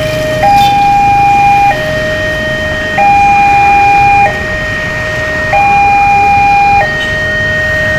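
Two-tone hi-lo siren, switching between a higher and a lower steady pitch about every 1.25 seconds; the high tone is louder.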